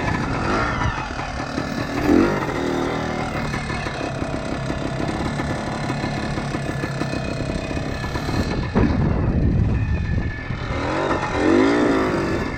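Kawasaki KT250 trials motorcycle's two-stroke single-cylinder engine running under riding. The revs rise and fall with the throttle, with a sweep about two seconds in and another near the end.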